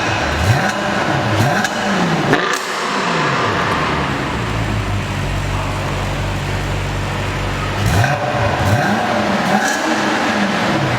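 Audi RS5 engine revved through an Armytrix cat-back valved exhaust: several quick throttle blips that rise and fall, then held at a steady higher rpm for a few seconds, then blipped again, with a few sharp pops.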